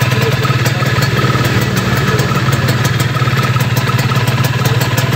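Yamaha F1ZR's two-stroke single-cylinder engine idling steadily.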